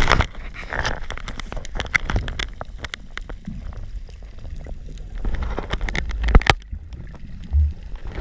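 Muffled underwater noise from a freediver's camera: water movement and a low rumble, with scattered sharp clicks and knocks, one heavy thump about six seconds in and a short low thud near the end.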